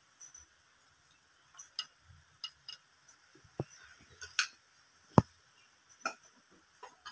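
Light clicks and clinks of an aluminium cooking pot and a plastic tea strainer being handled and set down, with one louder, sharp knock about five seconds in.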